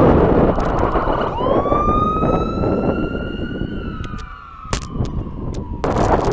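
Fire engine siren giving one long wail that rises over about two seconds, holds, then slowly falls, heard over wind buffeting the microphone of a moving bicycle. A few sharp knocks come in the middle, and the wind noise grows loud again near the end.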